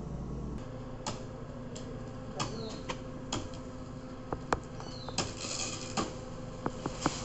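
A series of irregular sharp knocks and clicks, about fifteen over several seconds, a few of them louder, over a low steady hum.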